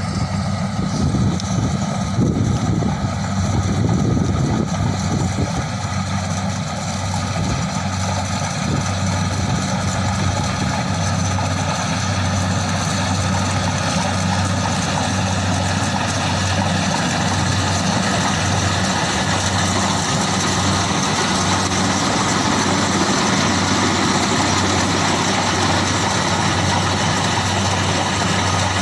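Kubota rice combine harvester's diesel engine running steadily under load while the machine cuts and threshes standing rice, a constant mechanical drone that grows a little louder as it drives closer.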